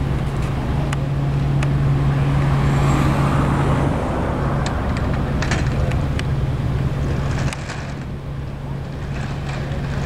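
Outdoor traffic noise over a steady low hum. It swells as a vehicle passes about three seconds in and drops suddenly about seven and a half seconds in.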